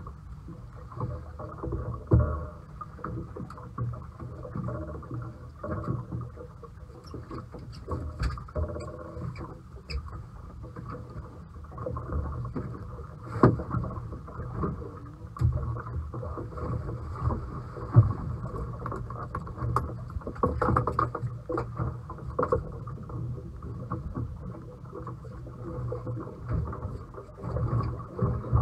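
A boat's engine running steadily, with irregular sharp knocks and thuds over it.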